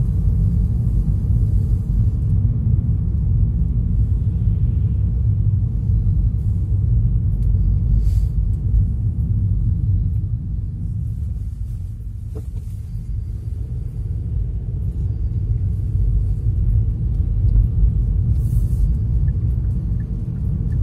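Steady low rumble of a car driving on the highway: road and engine noise, easing slightly about halfway through.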